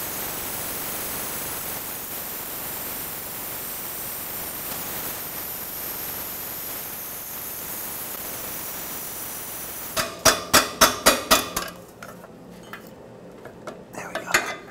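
Small torch flame hissing steadily as it heats the threaded base of a seized oxygen sensor in the exhaust pipe, to expand the threads and break it free. About ten seconds in the hiss stops, and a quick run of about eight sharp metallic clicks follows, then lighter metal clinks.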